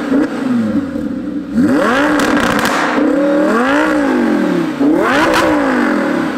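Lamborghini Huracan's V10 engine revved several times through a Kline exhaust system, its pitch rising and falling with each blip.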